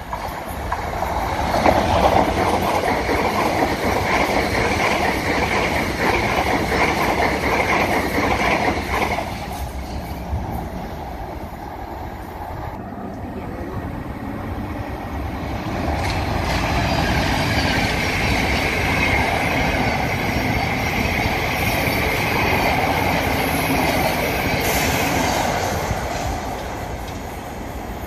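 Electric multiple-unit trains running through the station. The first, a Class 377, is loud for about nine seconds. After a quieter spell a second train, a Class 378, builds up loud again and fades near the end. A high steady whine runs over the wheel and motor noise of both trains.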